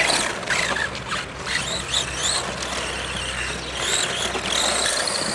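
Electric radio-controlled rally car's motor and gears whining high, the pitch rising and falling again and again as the throttle is worked.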